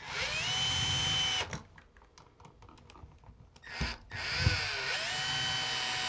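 Cordless drill-driver driving a receptacle's mounting screws into an electrical box, in two runs of motor whine that each rise in pitch and then hold steady. A couple of knocks come between the runs.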